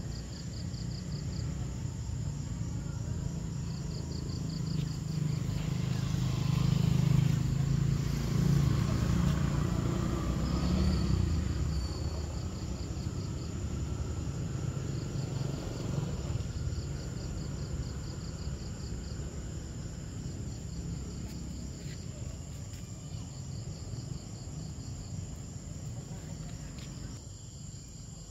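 Insects chirping in short trains of rapid, evenly spaced pulses that repeat over and over, over a low rumble that swells for several seconds about a third of the way in.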